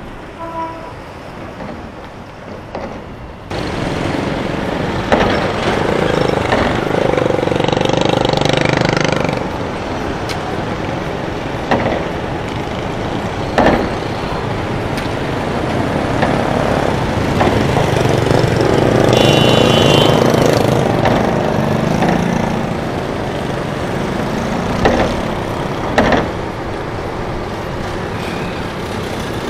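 Motorbike and car engines running as traffic rolls off a river car ferry, with knocks as wheels cross the steel ramp. The sound gets louder about three seconds in, and there is a short high beep about two-thirds of the way through.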